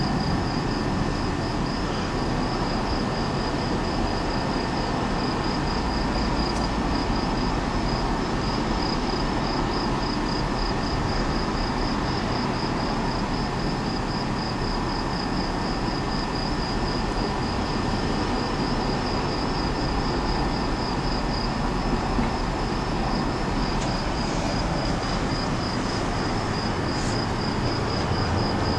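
Night insects chirping in a steady, rapid pulsing rhythm, high-pitched, over a constant low-pitched background noise.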